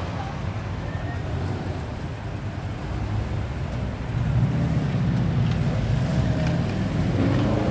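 Car and motorcycle engines idling and moving off in a queue, a steady low rumble that gets louder about four seconds in.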